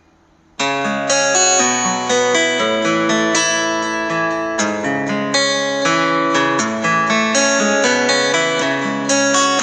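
Background instrumental music: a plucked guitar melody. It starts just after half a second in, following a brief silent gap.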